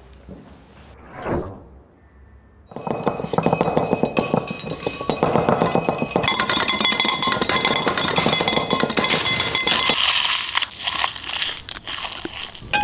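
A short whoosh about a second in, then from nearly three seconds in a dense clatter of cutlery, plates and glasses clinking together with crinkling plastic and wrappers, running on without a break.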